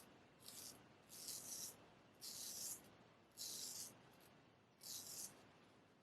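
Bengall cast steel straight razor cutting through stubble: about six short, high scraping strokes, each about half a second long, at roughly one a second.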